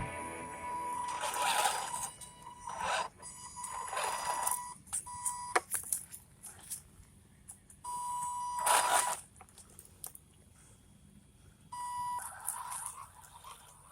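MN86KS RC crawler's small electric motor driven in short bursts, with a steady high whine each time the throttle is applied, mixed with scrapes and crunches from the tyres on the trail.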